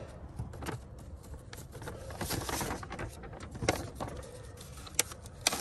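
Paper rustling and crinkling as hands handle a folded paper form and a windshield sticker, with a few sharp crackles in the second half.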